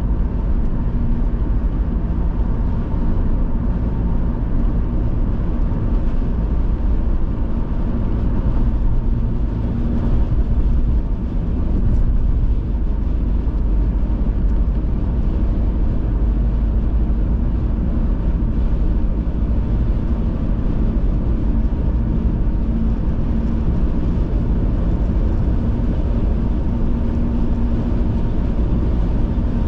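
A car being driven at a steady speed: a continuous low rumble of road and engine noise with a faint steady hum.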